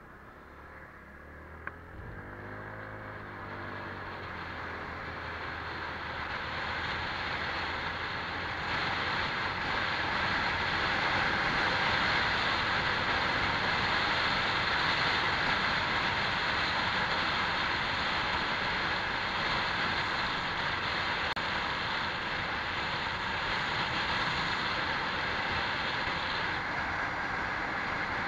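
Honda PCX scooter engine pulling away, its pitch rising and dipping, then a steady rush of wind and road noise that builds up and holds as the scooter rides at speed.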